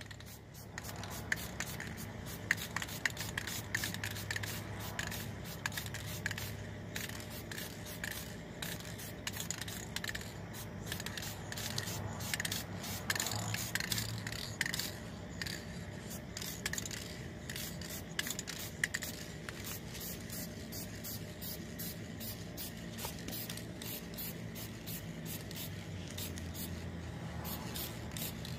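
Aerosol spray paint can spraying in repeated short bursts, laying a coat of paint on a car body panel.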